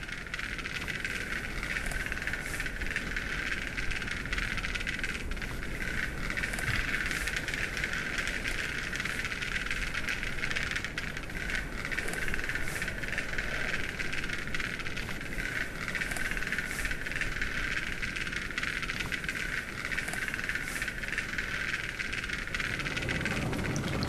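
Black-billed capercaillie courtship display: a steady hiss with scattered sharp clicks.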